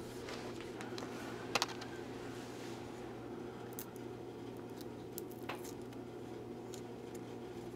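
Small handling sounds as fingers work a small cap off a black tube: a few light, sharp clicks, the loudest a quick double click about a second and a half in, over a steady low hum.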